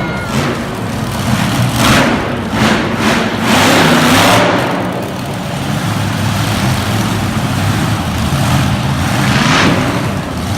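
Monster truck engine running loud and revving hard, with surges about two seconds in, again a little later, and once more near the end.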